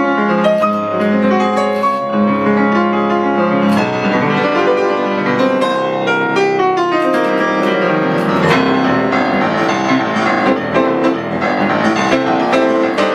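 Instrumental background music led by piano, with a continuous run of notes.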